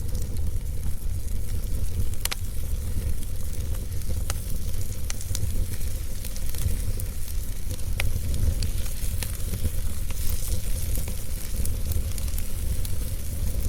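Wood fire crackling steadily with a fine hiss and a few sharp pops, about 2, 4 and 8 seconds in, over a low steady rumble.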